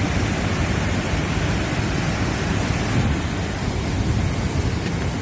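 A broad waterfall: water pouring steadily over the drop in an even rush.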